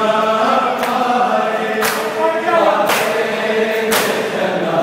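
A group of men's voices chanting a mourning lament (noha) together, with rhythmic slaps of hands on bare chests (matam) about once a second, four times.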